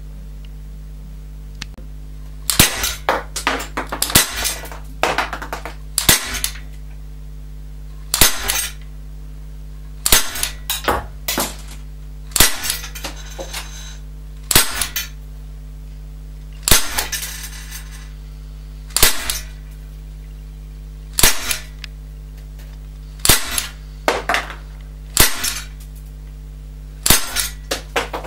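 UX TDP 45 CO2 air pistol firing 4.5 mm steel BBs, about a dozen sharp shots roughly two seconds apart. Each shot is trailed by a few fainter clicks.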